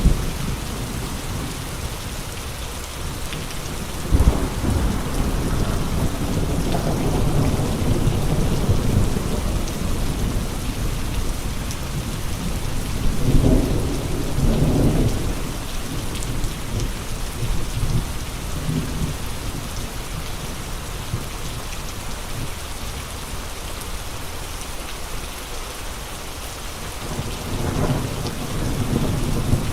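Steady rain with gusting wind: a constant hiss of rain, with deep rumbling swells that rise and fade a few times, about four seconds in, around the middle, and near the end.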